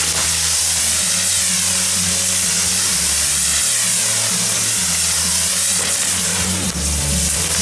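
Spinning mechanical ground fireworks spraying sparks: a loud, continuous fizzing hiss with a swishing that rises and falls as the pieces turn, over background music.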